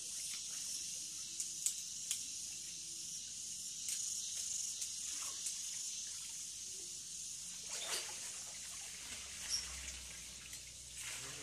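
Pond water sloshing and trickling as a man wades and works a hand dip net through it, with a few faint splashes and a steady high hiss throughout.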